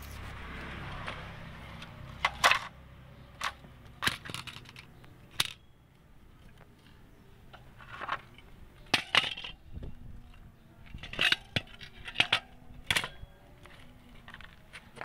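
Irregular sharp metallic clinks and knocks, about a dozen, a few with a brief ring: tools and loose metal parts being handled during gearbox removal work.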